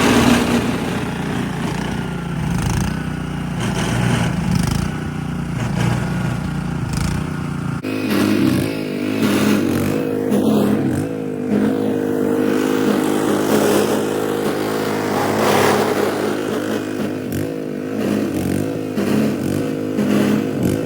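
An engine running steadily, its note changing abruptly about eight seconds in.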